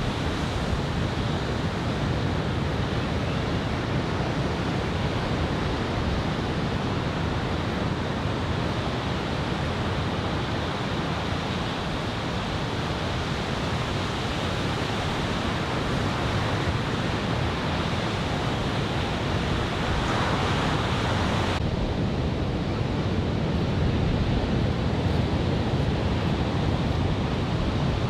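Ocean surf breaking on a beach under a typhoon swell, a steady rushing noise with wind on the microphone. The high hiss drops away suddenly near the end.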